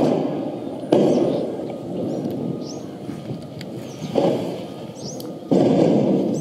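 Recorded fireworks played through a phone speaker: three sudden booms, about a second in, then twice close together past the middle, each fading away into a rumble.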